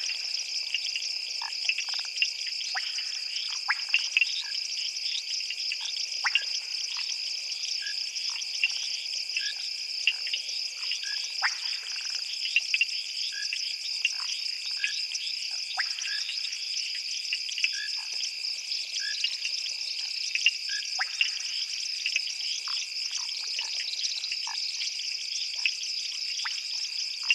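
Night chorus at a waterhole: a dense, unbroken high trilling of insects, with many short frog calls and clicks dotted irregularly through it.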